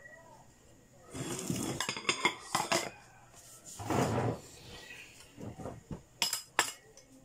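Ceramic bowls, plates and metal spoons clinking and knocking as they are stacked together on a table, with a brief louder noise about four seconds in and two sharp clinks of a drinking glass set into a bowl just after six seconds.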